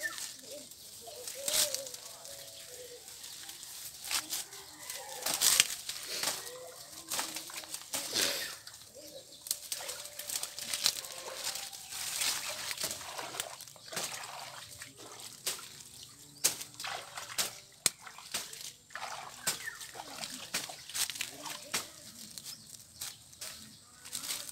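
Dry brush, leaves and twigs rustling and crackling in irregular bursts, with now and then a light slosh of water.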